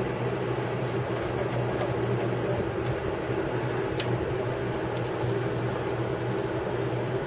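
A steady low mechanical hum with a few faint clicks, one a little sharper about four seconds in.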